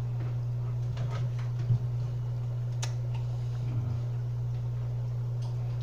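Steady low hum, with a few faint ticks over it, one about two seconds in and one about three seconds in.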